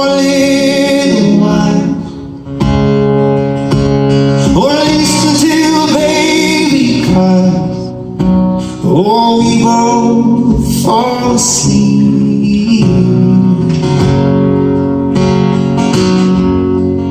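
Live acoustic band music: strummed acoustic guitars with keys and a sung melody line without clear words.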